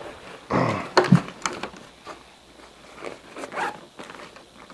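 Rustling and sharp clicks as a fabric bag is handled and rummaged through, loudest about half a second to a second in, with another rustle near three and a half seconds.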